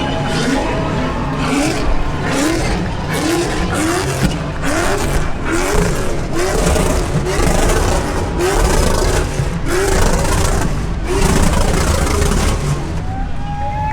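V8 engine revved hard over and over in a burnout, each rev a short rise in pitch, about one a second, over a dense wash of engine and tyre noise.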